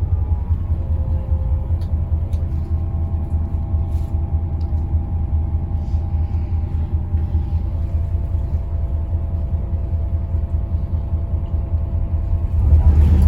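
Daewoo FX116 bus running on the road: a steady low engine and road rumble with a faint steady whine above it, growing louder near the end.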